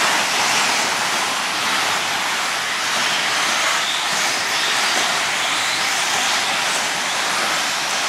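A pack of 2wd electric RC buggies with 17.5-turn brushless motors racing together: a steady high whirring hiss of motors, gearing and tyres on the dirt.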